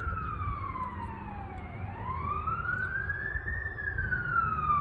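Fire engine siren wailing, its pitch sliding slowly down, up and down again, with a low rumble underneath.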